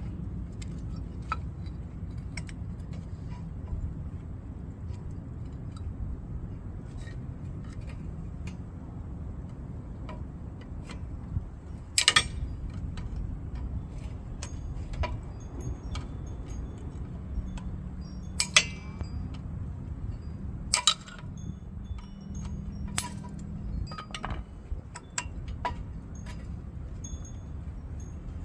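Scattered metallic clinks and taps of hand tools against rear brake caliper hardware, with three louder sharp knocks in the second half, over a steady low rumble.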